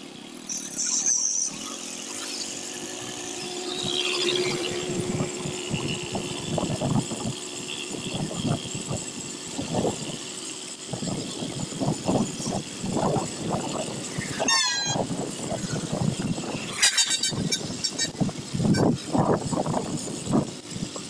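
Motorcycle ride on a wet road: steady engine and road noise with irregular buffeting throughout. A short run of high chirps is heard about two-thirds of the way through.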